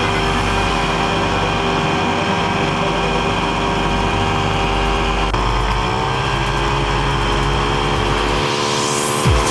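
Snowmobile engine running steadily, with a slight shift in pitch about halfway through. A short rushing sweep and a thump come near the end.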